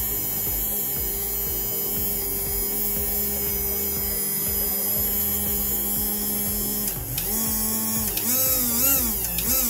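Small DC motor of a Tyco HO-scale Santa Fe F7 locomotive, freshly oiled, running on the bench with a steady hum. About seven seconds in its pitch drops and then wavers up and down as its speed changes.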